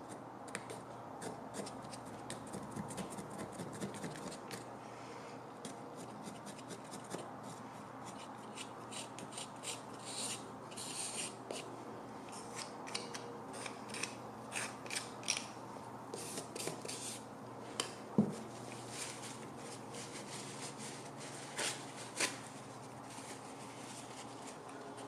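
A wooden stick scraping softened, stripped paint off a metal stand base in many short strokes, with a single knock about two-thirds of the way through.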